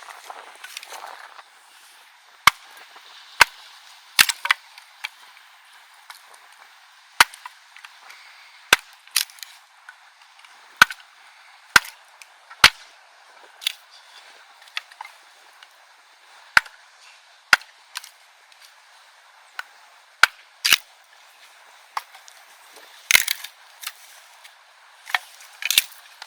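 Fish frying in hot oil over a wood fire: a steady sizzle with sharp, irregular pops and spits, about one every second, some in quick pairs.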